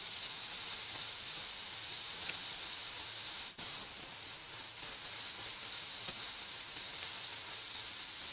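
Steady hiss of microphone and room noise with no speech. There is a brief dropout about three and a half seconds in and a faint click about six seconds in.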